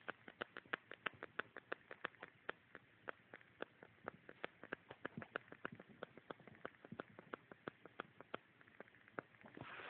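A fast, steady run of sharp clicks or taps, about four to five a second, faint and thin-sounding.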